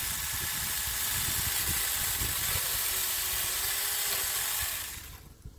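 Saker Mini 4-inch 20V cordless electric chainsaw running steadily as it prunes a tree branch, with a high, even motor whine, then stopping near the end.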